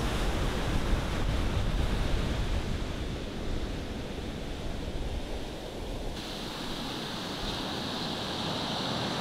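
Sea waves breaking and washing up a sandy beach, with wind rumbling on the microphone. About six seconds in, the sound turns to the closer hiss of foamy surf running over the sand.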